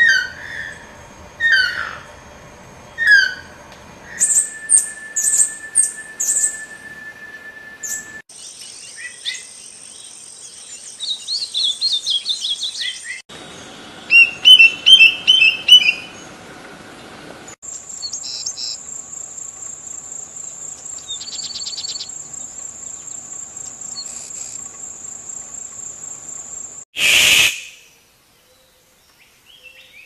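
A run of different tropical birds' calls cut together. First a toucan gives repeated calls about every second and a half, then come other birds' rapid chirps, whistled notes and trills. In the second half a steady high pulsing tone is held for several seconds, and a short loud rush comes near the end.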